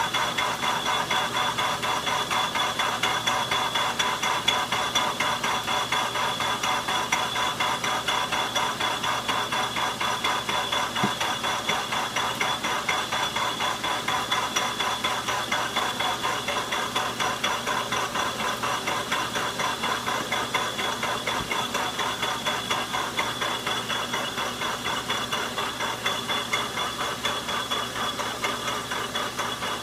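Logan metal lathe running under power, with a steady whine and a rapid, even ticking of about four to five a second.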